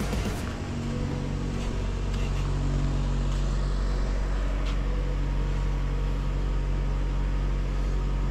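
A steady low machine hum, like a running motor or engine, that settles in about half a second in and holds even.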